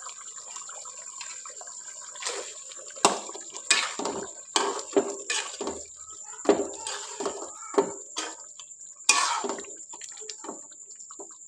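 Thick chicken curry gravy simmering in a metal pot, then a metal spoon stirring it from about two seconds in: irregular clinks and scrapes against the pot with wet sloshing of the gravy.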